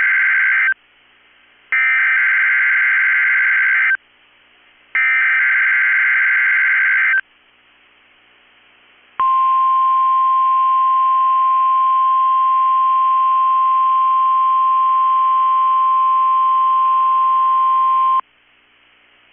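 NOAA Weather Radio Required Weekly Test signals. The SAME digital header sounds as buzzy data bursts about two seconds each, separated by one-second gaps. A steady 1050 Hz warning alarm tone then sounds for about nine seconds and stops abruptly.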